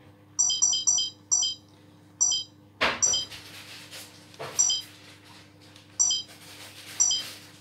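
Short, high electronic beeps from a small device: five quick beeps in the first couple of seconds, then single beeps roughly every second or so. There are a couple of soft knocks of handling in between.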